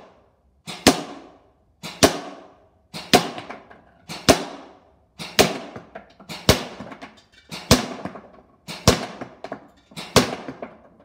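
VFC Avalon Samurai Edge airsoft electric rifle (AEG) firing single shots on semi-auto, about nine in all, roughly one a second, each a sharp report followed by a short echo.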